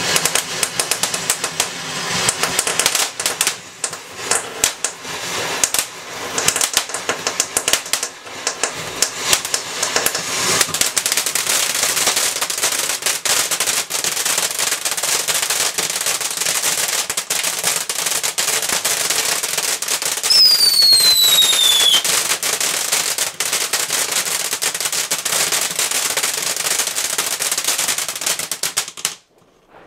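Firework fountains from a Dancing Red Devil 'Strikeforce' selection box, hissing and crackling with rapid popping sparks. About twenty seconds in, a whistle falls in pitch for a second and a half. The sound cuts off suddenly near the end.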